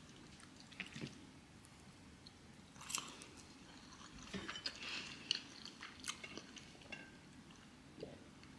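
Quiet eating sounds: a metal fork clicking against a ceramic bowl of pasta, and chewing. The clicks are small and scattered, busiest in the middle.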